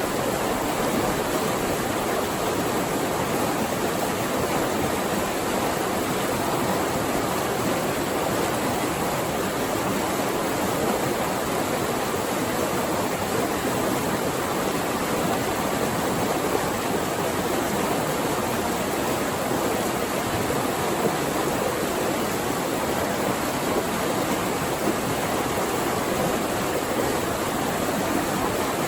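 Flowing water rushing steadily, an even, unbroken sound with no pauses or separate splashes.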